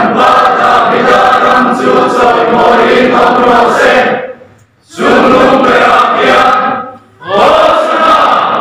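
A church congregation singing together, many voices in unison. The singing is loud and comes in three phrases, with short breaks about four seconds and seven seconds in.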